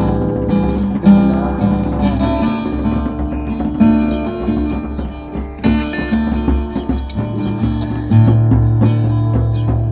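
Acoustic guitar strumming chords in an instrumental passage with no singing.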